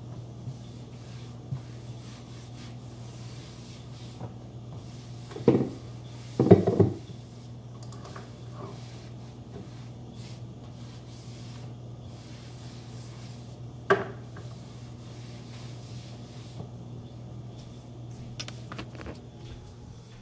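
Cloth rag rubbing and wiping over a countertop, with a few louder knocks and clatters around six seconds in and once more near fourteen seconds. A steady low hum runs underneath.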